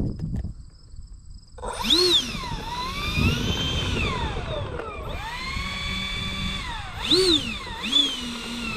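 Twin electric ducted fans on a foam flying wing start with a sudden high whine about a second and a half in. The pitch then rises and falls several times as the throttle is worked, holds steady for a while, and gives two short blips near the end.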